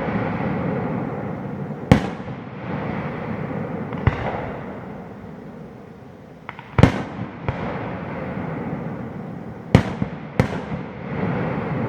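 Aerial firework shells bursting: five sharp bangs, the last two less than a second apart, each trailing off into a long rolling echo.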